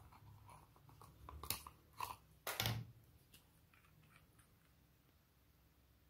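Hands handling a small zippered fabric pouch and a glass nail polish bottle: a few short, sharp handling noises between about one and a half and three seconds in, then only faint ticks as the bottle's cap is twisted off.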